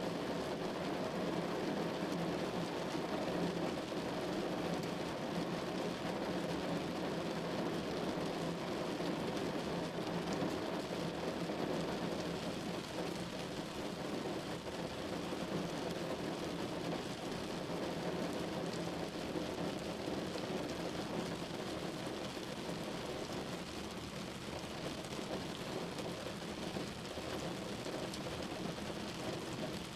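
Rain falling steadily on a window: an even wash of noise with no single drop, gust or rumble standing out.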